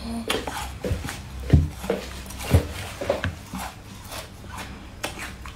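Close-miked eating sounds as leaf-shaped candies are picked from a silicone mould and chewed: a series of short clicks and pops, with four louder ones in the first three seconds or so and softer ones after.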